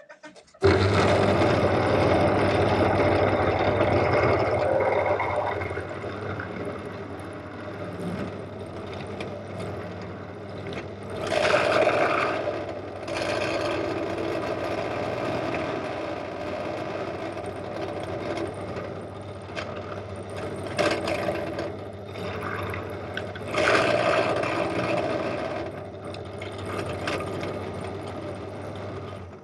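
Pillar drill running an end-mill cutter, milling a Woodruff key slot into a metal shaft clamped in a vice: a steady motor hum with metal-cutting noise. It starts suddenly just after the beginning, grows louder twice, about 11 and 24 seconds in, and stops at the end.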